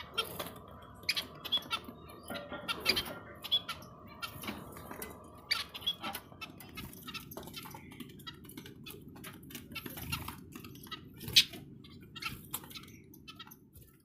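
Budgerigars chirping: many short, sharp chirps scattered irregularly, over a low steady background noise that changes about seven seconds in.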